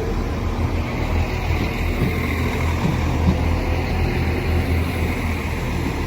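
Northern Ireland Railways Class 4000 diesel multiple unit's engines running with a steady low rumble.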